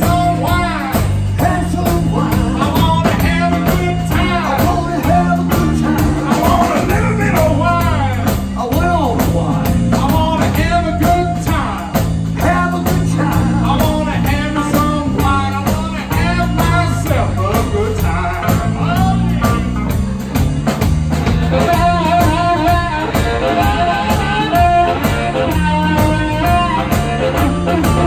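Live electric blues band playing: electric guitar, electric bass and drum kit, with a blues harmonica played into the vocal microphone.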